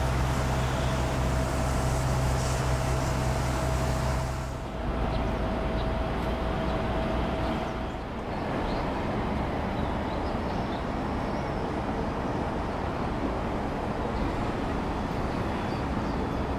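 Outdoor waterfront ambience: a steady low engine hum, the loudest sound, for the first four or five seconds. The sound then changes abruptly twice, leaving an even, steady background noise.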